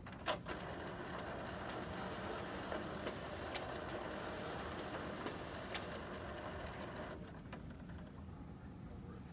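An HP multifunction printer's automatic document feeder pulling a stack of pages through the scanner: a click at the start, then steady mechanical running with a few sharp clicks, which stops about seven seconds in.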